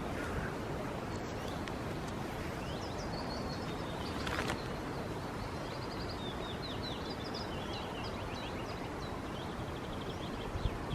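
Woodland songbirds singing in quick runs of high chirps and trills over a steady background hiss of outdoor ambience, with one short noise about four seconds in.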